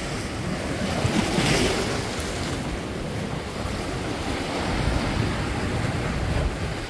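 Sea waves breaking and washing over rocks: a continuous rush of surf that swells about a second and a half in and again near five seconds, with wind rumbling on the microphone.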